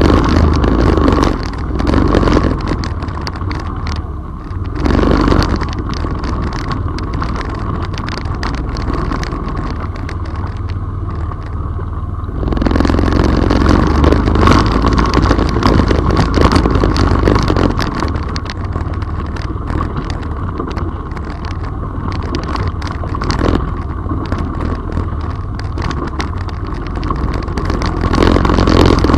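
All-terrain vehicle (quad) engine running steadily as it drives through a shallow river, with water splashing and sloshing under the wheels. It grows louder about halfway through.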